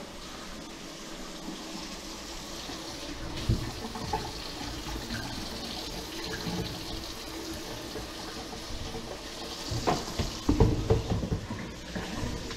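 Kitchen faucet running water steadily into the sink to test the drain after snaking. Several knocks and clunks come in the last couple of seconds.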